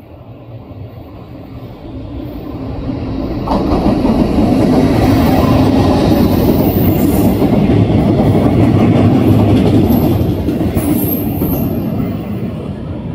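An EF65 electric locomotive hauling loaded Hoki 800 ballast hopper wagons passes close by. The rumble builds as the train approaches and jumps to loud about three and a half seconds in. The steady clatter and rumble of the wagons' wheels follows, with brief high wheel squeals, then it fades near the end as the last hopper goes by.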